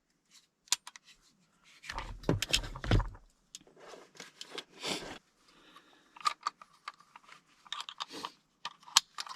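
Handling a handgun after its chamber is cleared, with scattered small clicks and the rustle of clothing and gear. A denser rustle comes about two seconds in.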